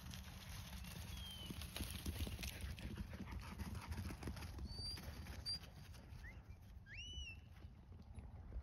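Hooves of a small group of sheep beating on the turf as they run close by, a quick patter of strokes in the first half, over a steady low rumble. A few short bird chirps come through, with one rising call near the end.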